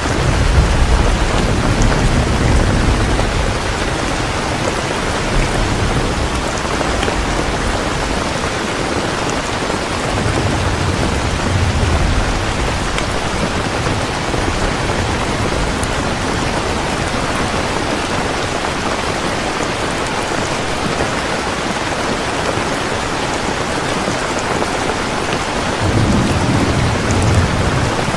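Heavy, steady rain with rolls of thunder: low rumbles at the start, again about ten seconds in, and near the end.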